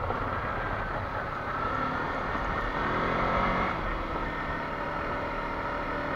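Kawasaki Versys-X 300 parallel-twin motorcycle engine running at a steady, low road speed, its tone clearer from about halfway through, over a rough noise of tyres on a loose gravel road.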